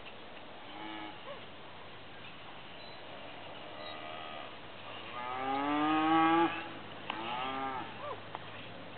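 Cattle mooing four times, the longest and loudest call coming a little past the middle.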